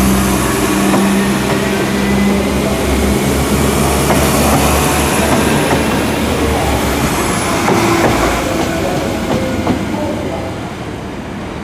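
Northern Ireland Railways CAF-built diesel multiple unit moving past at close range. Its underfloor diesel engine runs with a steady low hum and the wheels click over the rail joints, the sound fading in the later part.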